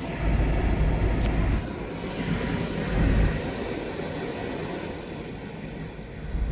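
The fans of a 2017 Jeep Cherokee (KL) running with a loud, steady whoosh over a low rumble. The rumble swells during the first second and a half and again about three seconds in.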